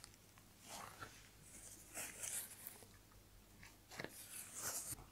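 Faint, intermittent rustles of a paper tissue pressed against the lips and folded while blotting lipstick.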